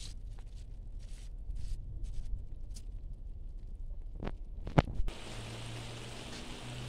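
Rice being spread with a metal skimmer over a cast-iron kazan: faint soft scrapes, then two sharp clicks about four to five seconds in. A steady faint hiss with a low hum follows.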